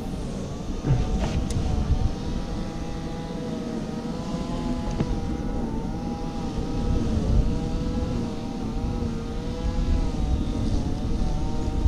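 A motor running with a droning hum whose pitch wavers slowly up and down, over a low rumble of wind on the microphone.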